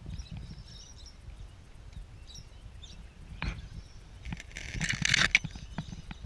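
Outdoor riverside ambience with a steady low rumble, a few faint bird chirps in the first couple of seconds, a single sharp knock about three and a half seconds in, and a brief loud rustling burst around five seconds in.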